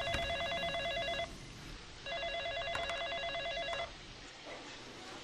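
Telephone ringing with a fast warbling electronic trill. It rings twice, each ring under two seconds: one at the start, the next about two seconds in.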